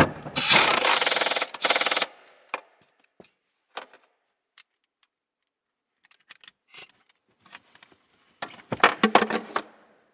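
A wrench tightening the upper mounting bolts of a Renault Megane 2's rear shock absorbers: a loud run of rapid clicks for about a second and a half, a few scattered clicks and knocks, then another run of rapid clicks near the end.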